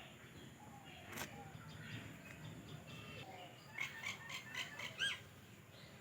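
Birds chirping: a quick run of short, high chirps about four seconds in, ending in a louder arched call near the end, with a single sharp click about a second in.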